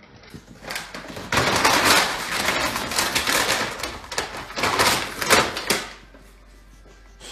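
A light plastic bin scraping and clattering over a hardwood floor as a puppy shoves it with its head: a run of rapid rattling knocks that dies down near the end.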